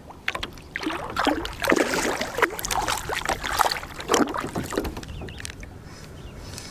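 Water splashing beside a boat as a released northern pike kicks away: a run of irregular splashes that dies down about five seconds in.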